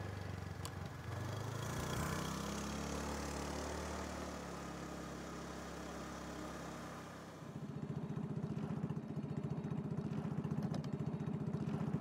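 Longtail boat engine running with a fast, even pulse, coming in about seven seconds in over a steadier low hum.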